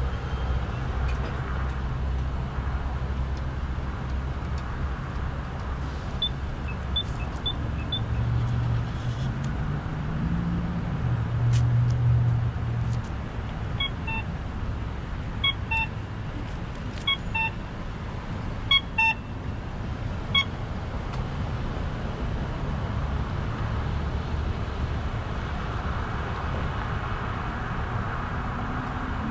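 Steady rumble of road traffic and wind, with a vehicle's engine swelling briefly near the middle. Over it come short electronic beeps: four quick ones about six seconds in, then about six more spaced out over several seconds, the loudest sounds here.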